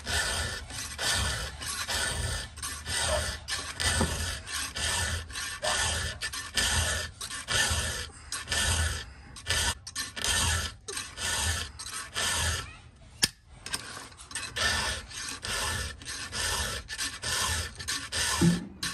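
Hand round file rasping across the cutters of a 3/8 skip-tooth chainsaw chain in steady sharpening strokes, about one a second. About two-thirds through there is a brief pause and a single sharp tap.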